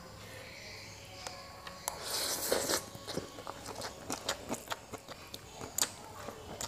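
A person eating Javanese fried noodles close to the microphone: a slurp of noodles about two seconds in, then wet chewing with many small mouth clicks and smacks.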